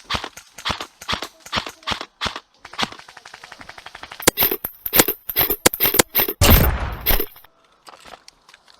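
Airsoft guns firing: single shots about three a second, then rapid full-auto bursts from about three seconds in, growing louder. A loud rush of noise comes near the end, and then the shooting stops.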